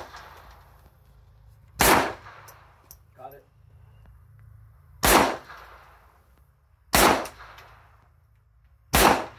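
Four single gunshots fired at irregular intervals, each followed by a brief echo.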